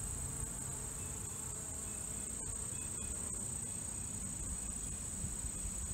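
Steady, high-pitched insect chorus, with a low rumble underneath.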